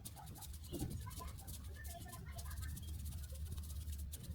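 Hands rubbing quickly back and forth on a child's skin during pediatric tuina massage, several short brushing strokes a second, over a steady low hum.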